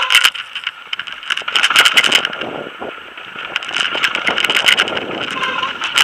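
Marin X-trail 6.7 mountain bike rattling and clattering over a rough, rocky downhill trail at speed, with a dense run of irregular knocks from the bike and tyres over a steady rush of tyre and wind noise.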